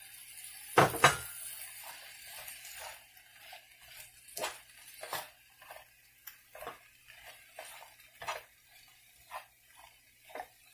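Spatula stirring sliced carrots and mushrooms in a frying pan: scattered scrapes and knocks against the pan, with a faint sizzle. Two sharper knocks about a second in.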